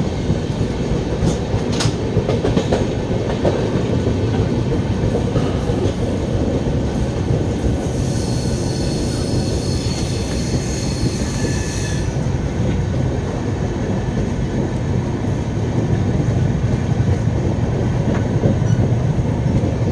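Passenger train running, heard from an open coach doorway: a steady rumble of wheels on rails with wind noise. A high-pitched wheel squeal rings out for about four seconds in the middle.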